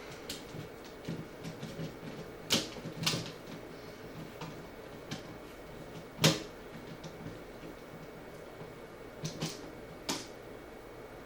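Scattered sharp clicks and light taps of hands and a tool working a wire into a household electrical outlet's terminal until it sits tight, the loudest click about six seconds in.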